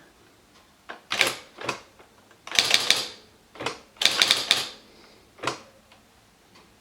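Esselte 80 electric typewriter typing: a few separate strikes about a second in, then two quick runs of rapid strikes in the middle, and a last single strike near the end.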